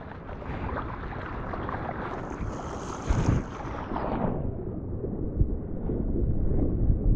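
Surf water rushing past a camera in the ocean, with wind buffeting the microphone: a hiss of spray swells about two seconds in and dies away after about four, then a low rumble of water and wind builds toward the end.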